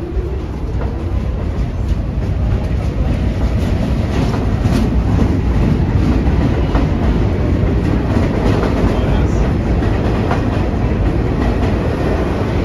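Vintage New York subway train of R33 and R36 cars running on the rails, with a steady rumble and scattered clicks from the wheels. It grows louder over the first couple of seconds, then holds steady.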